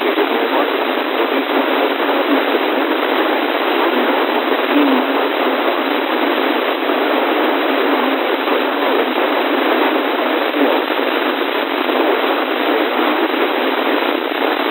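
Steady, loud radio static hiss with no voice or tones, thin and telephone-like as it comes through a radio receiver's narrow audio band.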